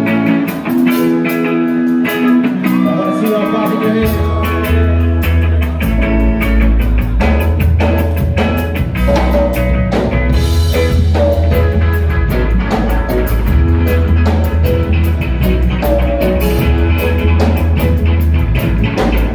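A live rock band playing the opening of a song: electric guitar and drum kit, with a bass line coming in about four seconds in.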